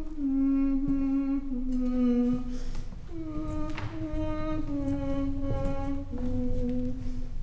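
A woman humming a slow melody of long held notes, a falling phrase of about three notes sung twice.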